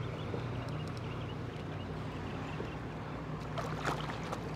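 A hooked catfish splashing at the water's surface beside a kayak, loudest between about three and a half and four seconds in, over a steady low hum.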